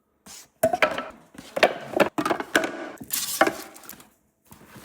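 A run of hard knocks and clatters, several in a row, like hard objects being handled and set down.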